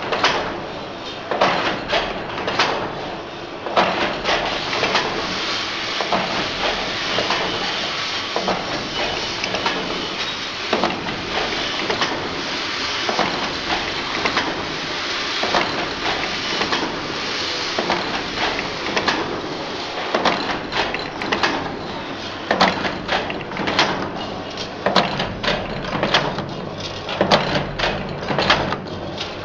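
Bucket-handle wire-forming machine running: a steady mechanical clatter crossed by rapid, irregular knocks and clicks, which come thicker near the end.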